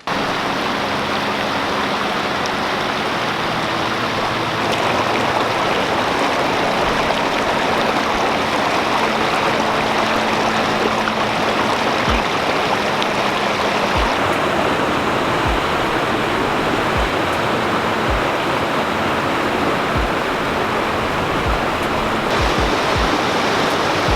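Creek water rushing steadily, a loud even wash of flowing water, with a few low thumps in the second half.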